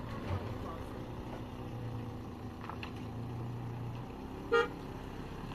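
A vehicle engine running steadily, with one short horn toot about four and a half seconds in.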